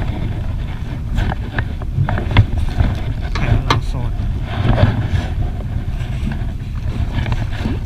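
Low rumbling wind and water noise aboard a small boat drifting at sea, with scattered light knocks.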